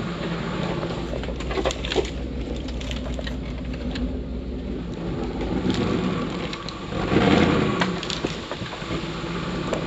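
Jeep Grand Cherokee ZJ's V8 engine running low and steady, with scattered cracks and knocks over it and a louder rush of noise about seven seconds in.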